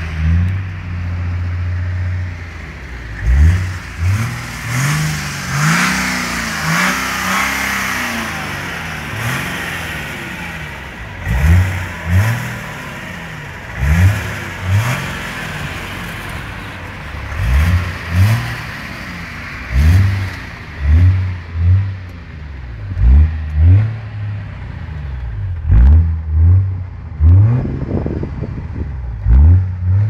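BMW X5 3.0d's straight-six diesel engine being revved over and over while parked. A few longer revs come in the first several seconds, then quick throttle blips follow about once a second, each rising and dropping back to idle.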